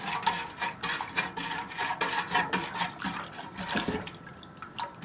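Wooden stirrer stirring granulated sugar into warm water in an enamel pot: a rhythmic gritty rustling of undissolved sugar grains against the pot bottom, with water swishing. The rustling shows the sugar has not yet fully dissolved.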